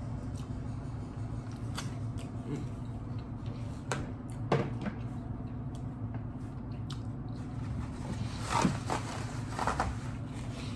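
Close-up eating sounds: chewing and mouth smacking on California roll sushi, with scattered clicks and a few louder smacks midway and near the end, over a steady low hum.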